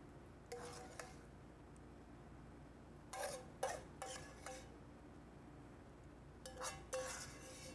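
A utensil scraping and clinking against a dish in three short bursts, about half a second in, around three to four and a half seconds, and near seven seconds: rice being scooped out and set on a plate.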